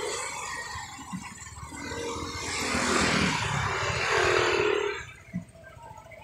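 A motor vehicle passing close by on the bridge: engine and road noise swell to a peak about three to four seconds in, then drop away quickly about five seconds in.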